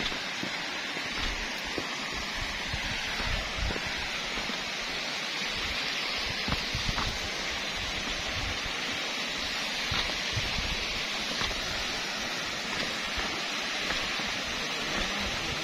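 Small mountain waterfall cascading down a rocky cliff: a steady rush of falling, splashing water.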